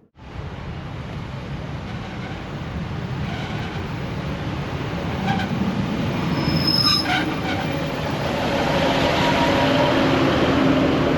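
A train running on rails, growing steadily louder as it approaches, with a brief high squeal about two-thirds of the way through.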